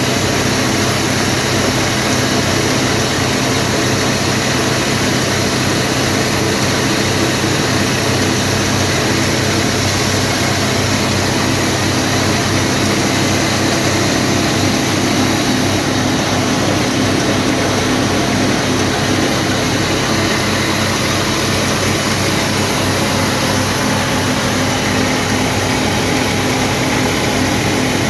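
Wheat grain grading and cleaning machine running steadily: a constant mechanical hum over a continuous rushing noise.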